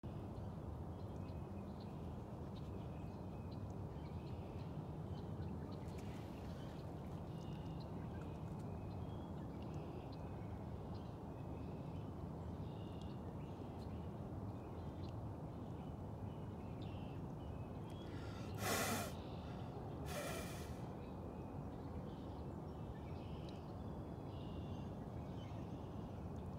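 Outdoor pond ambience: a steady low rumble with faint, scattered bird chirps. Two short, sharp breaths close to the microphone come about three quarters of the way through, the first the louder.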